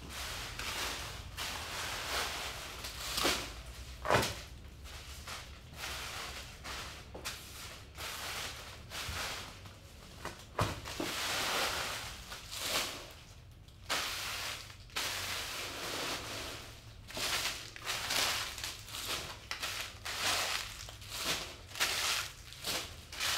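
Handfuls of gold-wrapped fortune cookies being scooped off a hard floor and dropped into a plastic bin: irregular crinkling and rustling of the wrappers, with a few sharp knocks.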